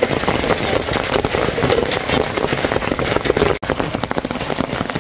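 Hail coming down with rain: a dense patter of small hard hits, with sharp clicks among them. It breaks off for an instant about three and a half seconds in.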